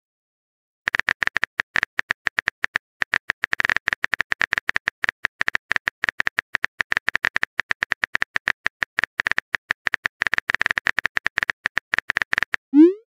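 Smartphone keyboard click sounds from rapid, irregular tapping as a text message is typed out. They start about a second in and stop just before the end, where a short rising pop of a message being sent begins.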